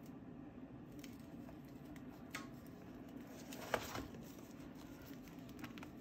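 Quiet handling noises of painting on a sketchbook page: scattered light clicks and ticks, and one brief louder rustle with a sharp click about halfway through, over a steady low hum.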